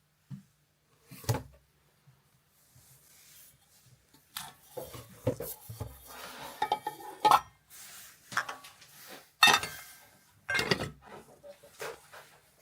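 Dishes and kitchen utensils clattering and scraping: a run of irregular knocks and rubs, the sharpest about seven and nine and a half seconds in.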